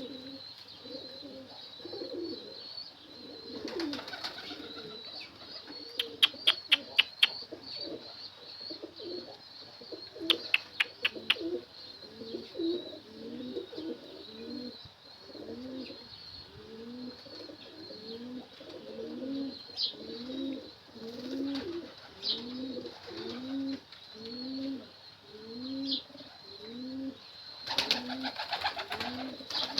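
Domestic pigeons cooing: short rising coos repeated over and over, about one a second in the second half. Two quick runs of sharp clicks come early on, and a brief noisy rush comes near the end.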